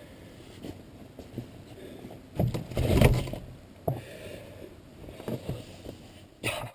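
Handling noise on a wooden-framed skin-on-frame canoe: rustling and knocks through the hull as gear is moved against it. The loudest cluster comes about two and a half to three and a half seconds in, then a few single knocks and a last burst before it cuts off.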